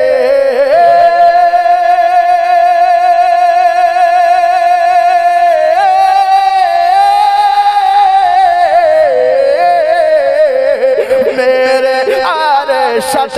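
A male naat reciter's singing voice holds one long high note for about eight seconds, then slides down and ornaments the melody in quick turns near the end.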